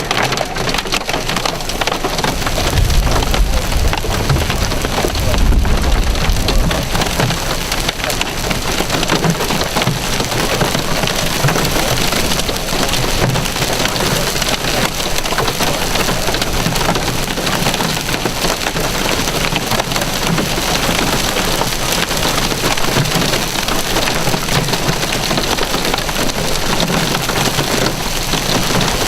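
Nickel- to quarter-sized hailstones pelting down with rain in a dense, continuous clatter of hard impacts. A deeper rumble swells from about two to seven seconds in.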